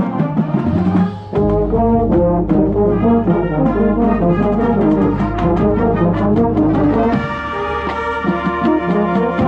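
Marching band playing: brass section over drum hits, moving note to note, then settling into one long held brass chord about seven seconds in.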